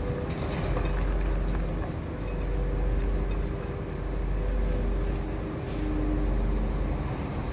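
Diesel dump truck's engine running as the truck backs slowly into position. The engine gently swells and eases every couple of seconds over a steady low hum.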